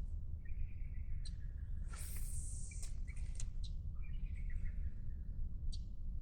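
Birds calling: several short whistled calls at a steady pitch and a few sharp, high chirps, over a steady low rumble, with a brief hiss about two seconds in.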